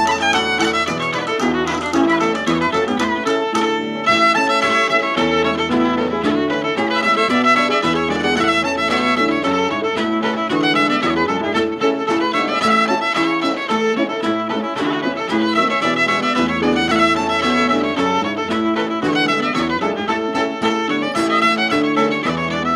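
Cape Breton fiddle playing a hornpipe in a quick, unbroken run of short notes, with low bass notes held underneath as accompaniment, from a 1960 LP recording.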